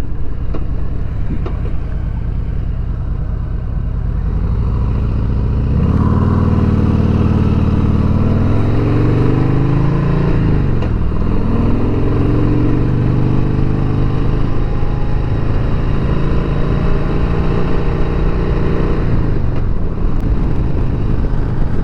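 2020 Harley-Davidson Sport Glide's Milwaukee-Eight 107 V-twin engine pulling under way: about six seconds in it picks up, rising in pitch, dips briefly at a gear change and rises again, then holds a steady cruise before easing off near the end. Wind rush runs underneath.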